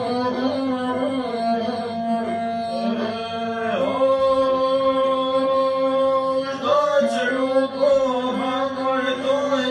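Lahuta, the single-string bowed Albanian folk fiddle, accompanying a voice singing a traditional song to it (këngë me lahutë), in long held notes that slide and bend where they change.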